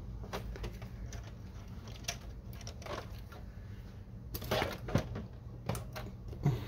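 Scattered light clicks and taps of plastic being handled as a ribbon cable is worked into an inkjet printer's printhead carriage, with a cluster of louder clicks about four and a half seconds in and another near the end, over a low steady hum.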